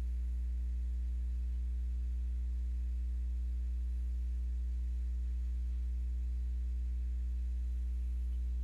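Steady low electrical hum, like mains hum picked up in the recording, unchanging and with no other sound over it.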